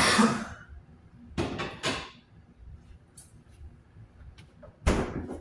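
Someone moving about a kitchen, knocking and handling things: a loud knock or clatter at the start, two shorter ones about a second and a half in, and another near the end, with faint ticks between.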